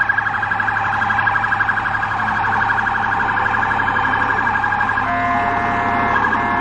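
Toy police car's electronic siren sounding through its small speaker in a rapid warble. About five seconds in it changes to a pattern of steady, broken tones.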